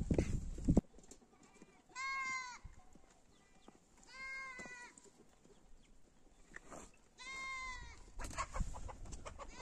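A goat bleating three times, each call under a second long and a few seconds apart. A low knock and rumble of handling noise comes in the first second.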